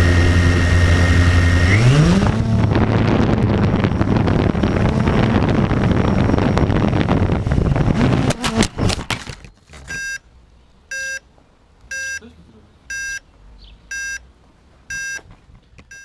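Blade 350 QX quadcopter's electric motors and propellers whining, rising in pitch about two seconds in as it lifts off, then a wavering whir in flight. A clatter of knocks about eight and a half seconds in as it crashes, then six short electronic beeps about once a second.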